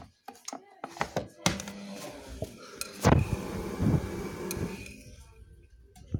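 Water rushing into an LG WD-80155NUP washing machine through the detergent drawer as it fills at the start of a delicate cycle, washing the powder in. A few clicks come first, and the rush of water stops about five seconds in.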